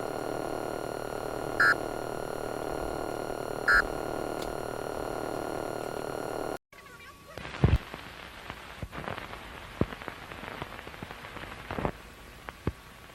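Broadcast-style interference sound effects: a steady electronic buzz with two short beeps about two seconds apart. The buzz cuts off abruptly about six and a half seconds in, giving way to crackling static with scattered clicks and pops.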